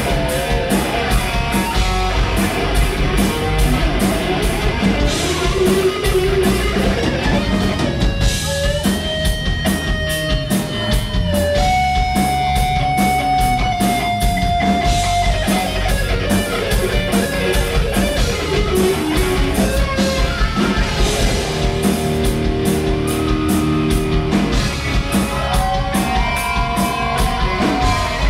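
Live heavy rock band playing: distorted electric guitar, bass and a driving drum kit, with long held guitar notes in the middle and again near the end.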